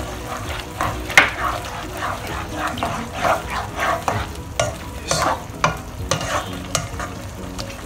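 Spatula stirring and scraping through egg tofu, prawns and minced pork in a thick sauce in a non-stick wok, mixing in starch solution to thicken it. Irregular scrapes and clacks, the sharpest about a second in.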